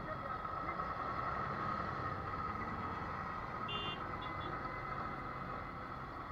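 Steady road traffic and engine noise heard from a slowly moving motorcycle passing a stopped truck. Two short high beeps sound just before the middle.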